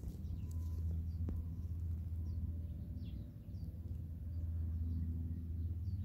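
Outdoor ambience: a low steady rumble, with faint bird chirps scattered through and one soft click about a second in.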